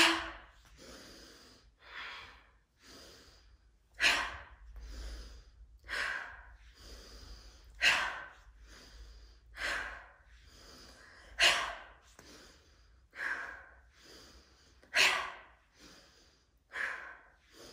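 A woman breathing deeply and rhythmically: a big inhale, then an audible sighing exhale as she bends her knees and folds forward, the cycle repeating about every four seconds.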